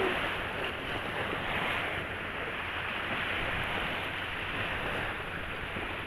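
Gentle sea surf washing over sandy shallows: a steady hiss of water.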